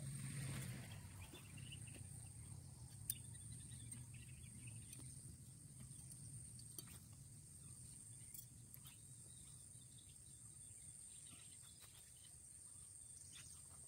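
Near silence with a faint, steady high-pitched insect trill, like crickets in a field, with a few soft clicks and one sharper click about three seconds in.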